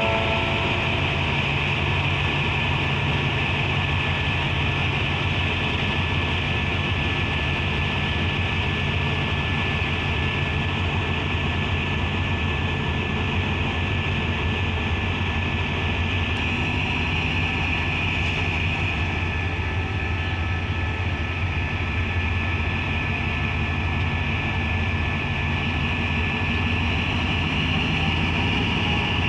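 Diesel locomotive engines running steadily at low revs: a deep, even hum with a hiss above it and no change in level.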